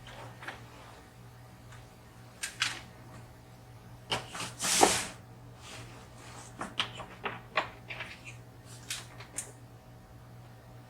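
Irregular small clicks and taps of hands handling small parts and tools, with one louder rustling scrape about halfway through. A faint steady hum runs underneath.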